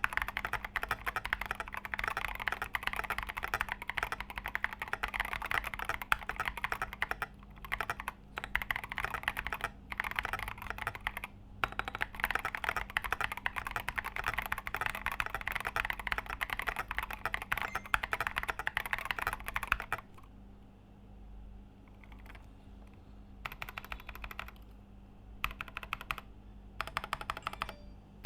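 Typing on a KBD75 v3.1 top-mount mechanical keyboard with Tecsee Coffee switches on an aluminium plate: fast continuous keystrokes with a few brief pauses, easing off about two-thirds of the way in to a few short bursts of key presses.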